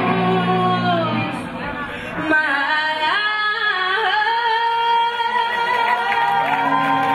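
Live acoustic song: a woman sings with an acoustic guitar. The low accompaniment drops away about a second in, and the voice comes back strongly, ending on a long held note through the second half.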